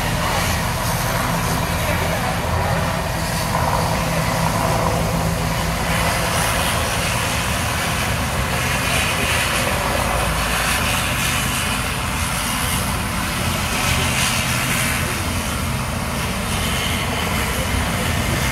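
Twin-turboprop airliner's engines running steadily on the ground, a constant low hum under a broad rushing noise.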